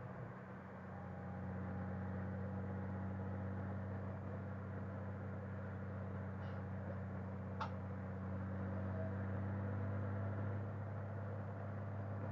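Motorcycle engine running steadily at road speed, a low even hum with road and wind noise over it. A single sharp tick a little past halfway.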